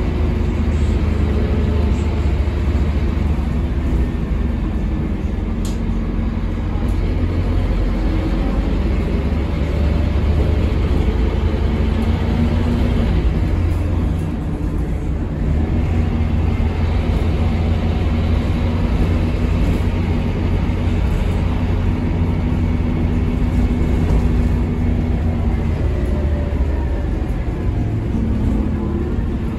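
Scania K230UB city bus heard from inside the cabin: its rear-mounted Scania DC9 five-cylinder diesel and ZF Ecomat automatic gearbox running under way, a steady low drone with a tonal hum on top. It eases off briefly about halfway, and near the end the pitch rises as the bus picks up speed.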